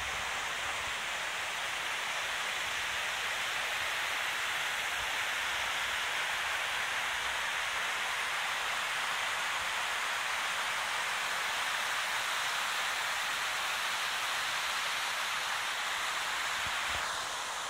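Steady rushing of a shallow mountain stream running over stones, easing slightly near the end.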